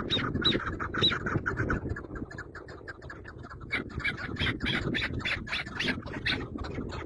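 Birds squawking in rapid, repeated short calls, with a brief lull a couple of seconds in.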